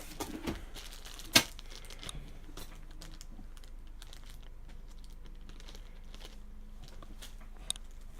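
Rummaging through small computer parts and their plastic packaging: scattered light clicks and rustling, with one sharp click about a second and a half in.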